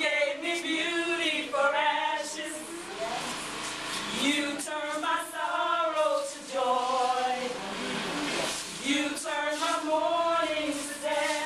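Voices singing together, with long held notes that waver in pitch.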